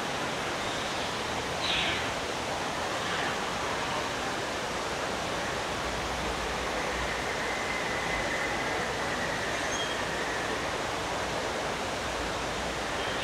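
Steady rush of falling water from a waterfall, with a brief falling whistle about two seconds in and a faint thin tone in the middle of the stretch.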